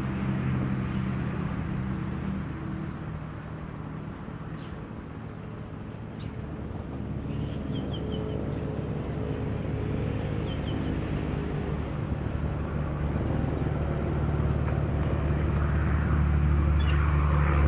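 A vehicle engine running steadily. Its hum eases off a few seconds in, then builds and grows louder toward the end. A few faint short chirps come in the middle.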